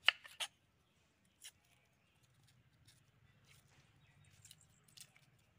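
Small kitchen knife peeling and cutting a small red onion over a wooden board: a few sharp clicks in the first second and a half, the loudest at the very start, then scattered fainter ticks.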